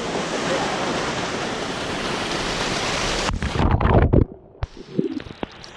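Waterfall rushing steadily close by. About three seconds in, water pours straight over the camera housing and the sound turns to a loud muffled drumming. It then drops to a dull, much quieter murmur with a few knocks.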